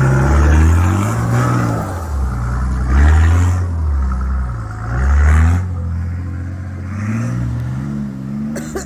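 Four-wheel-drive vehicle's engine revving up and down in repeated throttle bursts as it crawls over rocks. The pitch rises and falls about every second or two.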